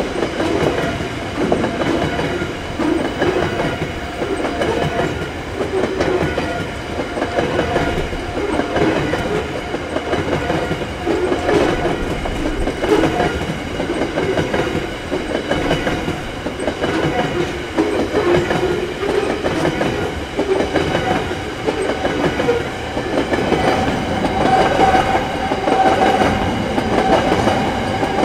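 A long rake of CET coal wagons rolls steadily past at close range: the continuous rumble and clatter of steel wheels on the rails. A steady whine grows stronger near the end.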